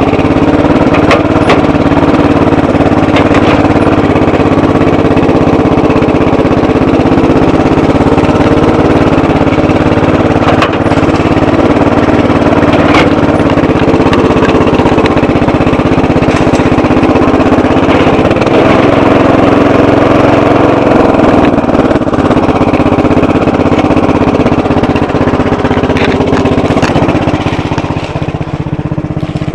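Bolens 12 hp lawn tractor engine running steadily, heard close up from the hood, with a few sharp clicks scattered through. The engine note drops a little and gets quieter near the end.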